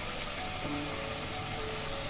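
Soft, steady sizzle of an onion-tomato masala with ginger-garlic paste frying in a pan, with faint background music.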